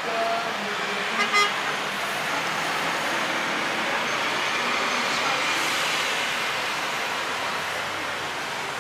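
Steady city road traffic noise from the street below, with a car horn tooting twice in quick succession about a second in.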